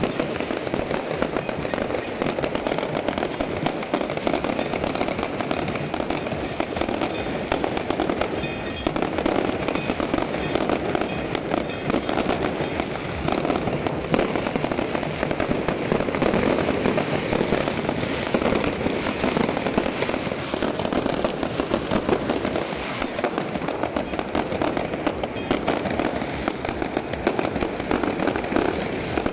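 A continuous fireworks barrage: aerial bursts and firecrackers going off in rapid, overlapping bangs and crackles, with no break.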